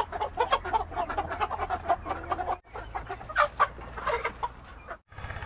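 A flock of white chickens clucking and squawking in many short, overlapping calls, stirred up by someone reaching in to catch one. There is a brief break about two and a half seconds in.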